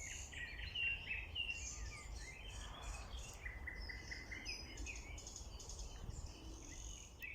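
Several songbirds singing at once in spring, a busy chorus of overlapping chirps and warbled phrases, over a low steady rumble.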